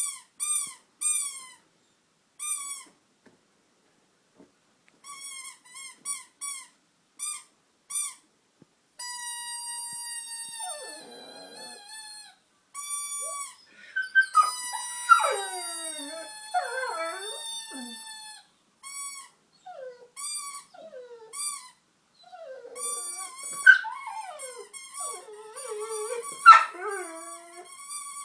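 A toy squeaker is squeezed in short, rapid high squeaks for the first several seconds, then gives long, steady squeals. Under the squeals a pit bull howls along in wavering, sliding cries.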